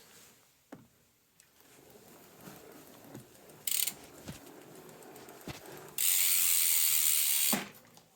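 The Pinion C1.12 gearbox drivetrain of a Priority 600 bicycle turning with a light rattle and scattered clicks. Two bursts of loud, high, ratcheting buzz come over it: a short one about four seconds in, then a longer one of about a second and a half that starts and stops abruptly.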